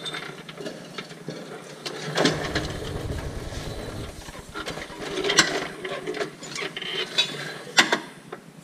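Steel floor jack being moved and set in position under a backhoe's hydraulic pump: scattered metallic clanks and ratchet-like clicks, with a low rumble about two seconds in.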